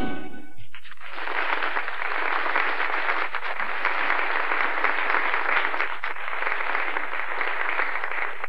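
A jazz band's final chord dies away in the first second, then an audience applauds steadily.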